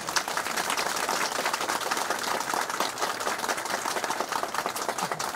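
Crowd applauding: dense, steady clapping from many hands.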